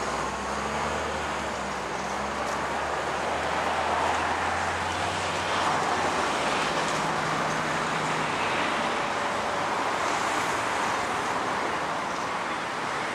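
Steady city road traffic noise, with the low hum of a vehicle engine passing during the first few seconds.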